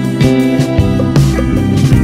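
Background instrumental music with plucked notes over a bass line and a steady rhythm.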